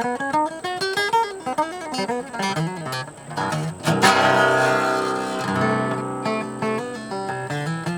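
Acoustic guitar played solo: quick runs of single picked notes, then a loud strummed chord about four seconds in that rings out for a second or two before the picking resumes.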